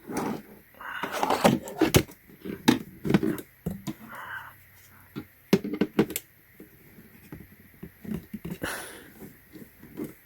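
Plastic plug-in night lights being handled and plugged in: a string of scattered clicks and knocks with a few short rustles.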